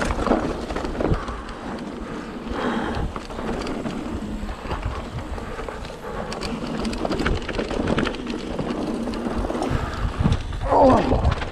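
Mountain bike riding along a dirt singletrack: knobby tyres rolling over dirt and leaf litter, the bike knocking and clicking over bumps, with wind rushing over the microphone. A short pitched sound, like a brief call, comes near the end.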